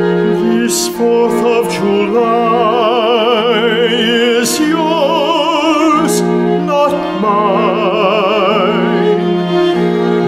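Baritone singing in a classical, operatic style with wide vibrato, over held low notes from a chamber orchestra's strings.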